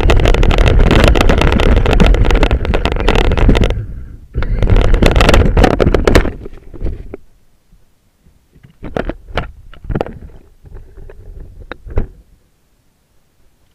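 RC truck driving, a loud rumbling noise in two long stretches with a short break between, fading out after about six seconds, followed by a scatter of sharp clicks and knocks.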